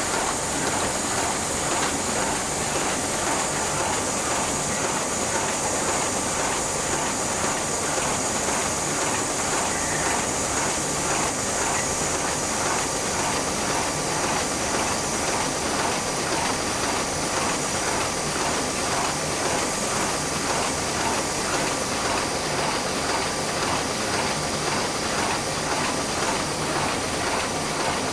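Heidelberg Speedmaster SM52 sheet-fed offset press running steadily through a print run: a rapid, even mechanical clatter over a constant hiss.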